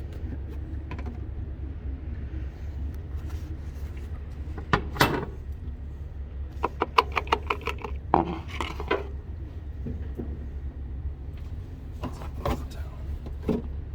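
Handling noises at a truckmount engine during an oil change: a sharp knock about five seconds in, a quick run of even clicks a little later, then more clatter and a few light knocks near the end. A steady low hum runs underneath.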